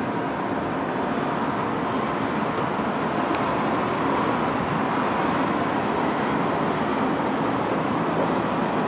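Sikorsky UH-60M Black Hawk helicopter flying at a distance: a steady, even rumble of rotor and turbine noise.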